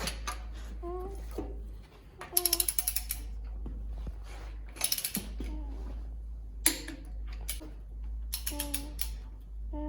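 Ratchet wrench clicking in several quick runs of clicks, with one sharp single click in between, as the cylinder head nuts of a 1947 Farmall A engine are tightened down.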